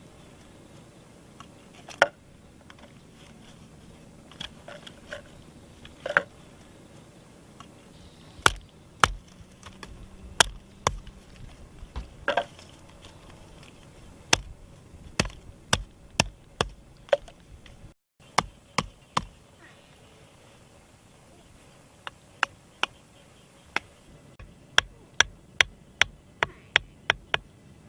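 A series of sharp chopping knocks, irregular and spaced out at first, then a quicker run of about two a second near the end.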